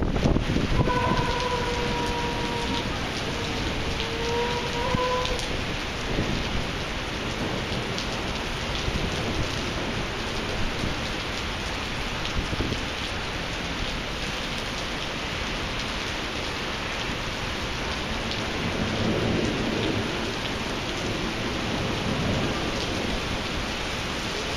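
Heavy rain falling steadily on pavement in a severe thunderstorm, with thunder rumbling: a clap dies away in the first second and another low roll swells later on.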